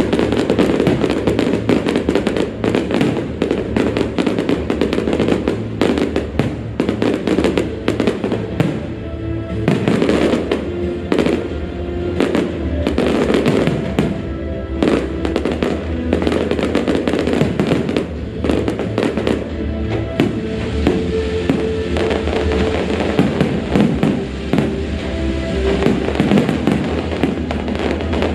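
Aerial fireworks bursting in a dense, irregular run of bangs and crackles, over music with a steady beat.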